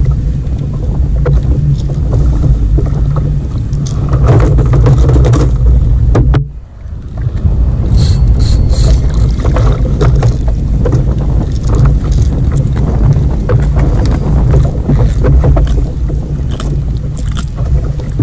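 Wind buffeting an action-camera microphone on a kayak at sea, a loud low rumble with scattered knocks from handling the fishing gear and the fish. The rumble drops out briefly about six and a half seconds in.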